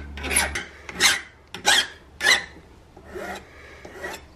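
Flat hand file rasping across the freshly hacksawed end of a metal threaded rod held in a bench vise, about five strokes at roughly two a second with a short pause before the last, deburring the cut end.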